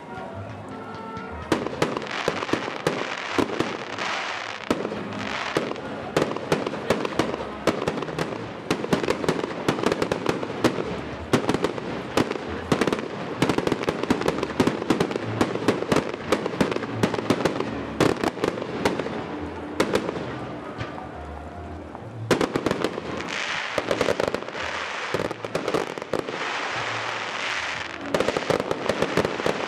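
Aerial fireworks display: a dense, continuous barrage of shell bursts, bangs and crackling, thinning out briefly about twenty seconds in before a fresh volley.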